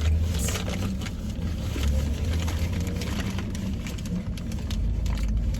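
Steady low rumble of a car's engine and road noise, heard from inside the cabin, with a few faint clicks.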